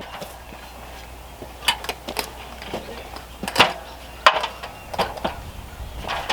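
Carpentry knocks on wooden framing: about eight sharp hammer taps and knocks at uneven spacing, over a low steady hum.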